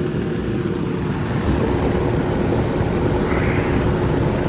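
2005 Rheem Classic air conditioner running steadily: the newly replaced condenser fan motor is turning and blowing air, with a steady hum underneath.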